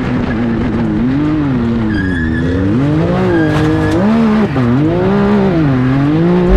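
Can-Am Maverick X3 race UTV's turbocharged three-cylinder engine heard from inside the cage, its pitch dipping and climbing again several times as the driver lifts off and gets back on the throttle.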